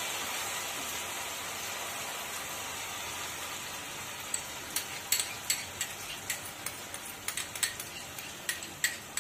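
Spice paste frying in oil in a nonstick pan with a steady sizzle that slowly fades as the heat is turned down. From about four seconds in, a run of sharp clicks and taps as whisked yogurt is scraped from a bowl into the pan with a small spoon.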